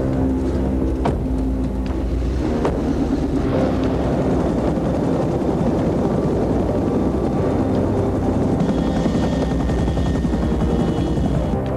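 Helicopter rotor chop, a dense, fast, steady beating that fills most of the stretch. Score music fades out in the first couple of seconds and comes back near the end. Two brief sharp sounds come in the first few seconds.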